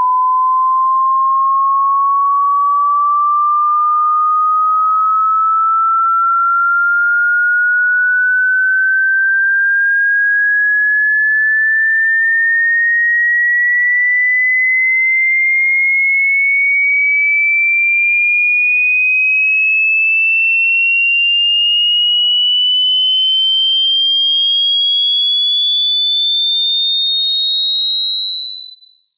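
Hearing-test sine-wave tone: a single pure tone rising slowly and steadily in pitch at an even loudness, a frequency sweep for checking how high one can hear.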